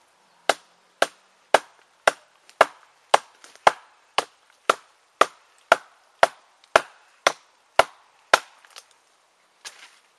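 TOPS Tom Brown Tracker knife chopping into a small barked log: about sixteen sharp blade strikes in a steady rhythm of roughly two a second, then a couple of fainter knocks near the end.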